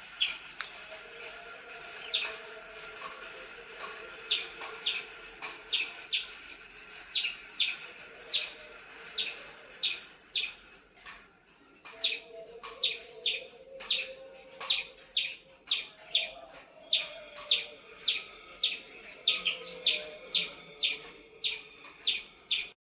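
Sharp, high, falling calls repeated about one to two a second, pausing briefly around the middle, with fainter wavering calls beneath.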